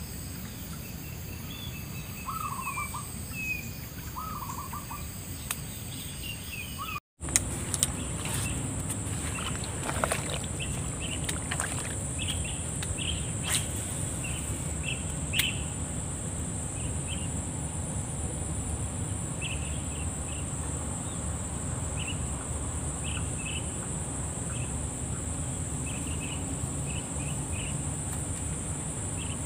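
Outdoor rural ambience: birds calling in short chirps. About a quarter of the way in, after a brief cut, a steady high-pitched insect drone sets in, with scattered short chirps over a low, even background noise.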